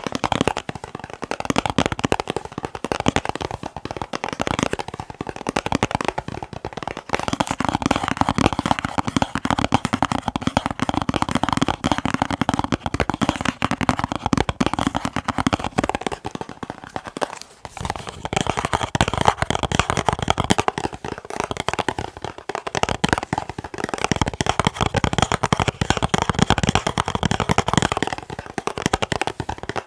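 Fast ASMR tapping on boxes: a dense, continuous patter of quick taps. It pauses briefly a little past halfway, and the hollow tone of the taps changes about a quarter of the way in and again after the pause.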